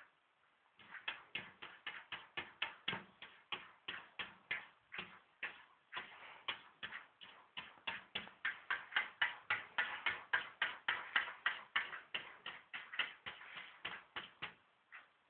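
A cat's paws tapping and scraping against window glass in quick succession, about three to four taps a second, stopping shortly before the end.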